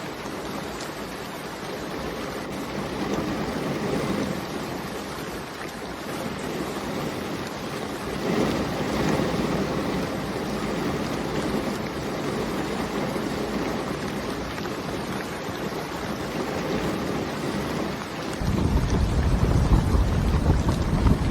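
Heavy rain falling as a steady hiss, swelling a little now and then. About three seconds before the end a deep rumble of thunder comes in and keeps going.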